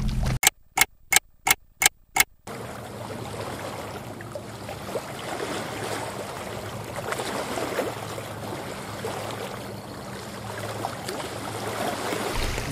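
Six sharp clicks in quick succession, then small lake waves lapping against a rocky shore in a steady wind.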